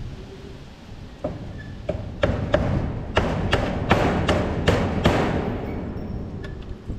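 A series of about ten sharp knocks, sparse at first and then coming about three a second, over a low steady rumble.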